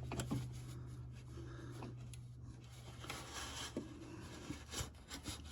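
Faint clicks and rubbing of a socket and ratchet being handled and backed out of the tight space around the oil pressure switch, over a low steady hum that stops about halfway through.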